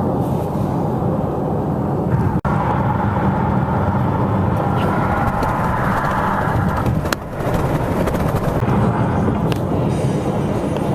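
Loud, steady rumbling noise, broken by a brief dropout about two and a half seconds in.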